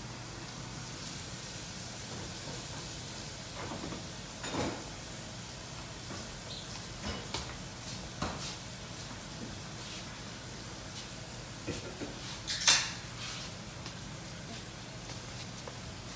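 Felt-tip marker writing on a spiral notepad: scattered light taps and scratches of the marker and hand on the paper and table over a steady low hum and hiss. One sharper, louder click comes about three-quarters of the way through.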